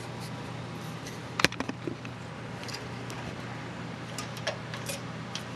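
A steady low hum with a sharp click about a second and a half in, a few lighter clicks just after it, and more light ticks near the end.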